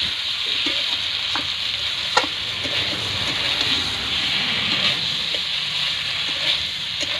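Spice-coated potatoes sizzling as they dry-fry in a steel kadai, a steady hiss with a metal spatula now and then scraping and clicking against the pan. This is the dry-frying stage, with the liquid cooked off and the masala frying in the oil.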